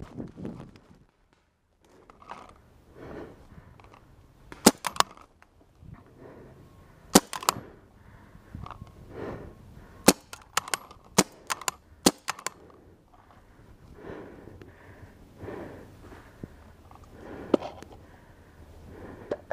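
Paintball markers firing: about a dozen sharp pops in clusters of one to three about 5, 7 and 10–12 seconds in, and one more near the end. Some are likely the player's own CCM T2 pump marker firing over the bunker. Softer rustling of movement through undergrowth comes between the shots.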